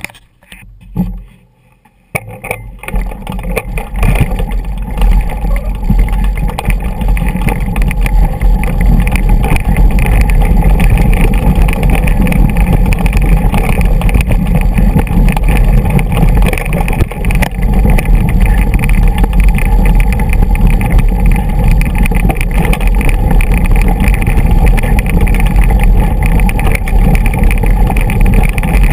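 Mountain bike rolling down a rocky dirt track: tyres crunching over loose stones and the bike rattling, with heavy wind rumble on the microphone. It is quieter at first and becomes loud and steady about two seconds in.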